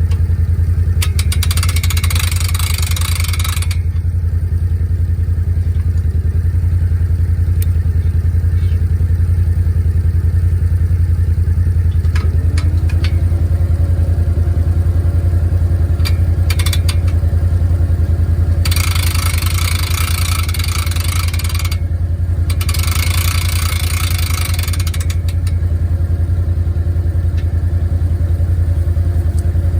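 An ATV engine runs steadily under load while towing a log on a skidding hitch; its pitch rises slightly about twelve seconds in and then holds. Three spells of hissing noise come over it, one near the start and two close together in the last third.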